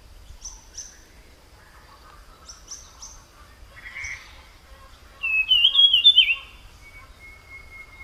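Small forest songbird calling: a few very short, high chips in the first three seconds, then a louder run of quick whistled notes, each slurring down, lasting about a second from about five seconds in.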